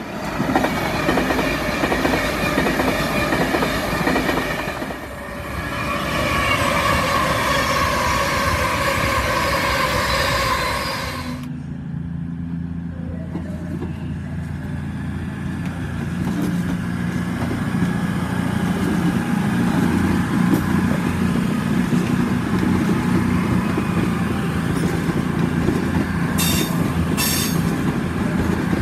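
A Class 390 Pendolino electric train passes with a rushing noise and a steady whine. After a cut comes the low, steady drone of a Class 221 Super Voyager's underfloor diesel engines as the unit moves slowly through the station, with a few sharp clicks near the end.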